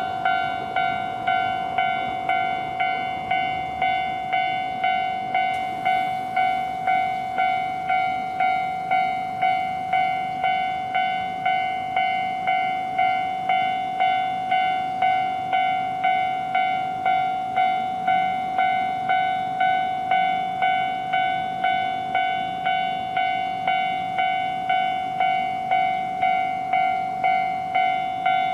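Japanese railroad crossing warning bell ringing its steady 'kan-kan', about one and a half strikes a second. Each strike is a clear ringing tone that dies away quickly. The last rumble of a passing train fades out in the first second.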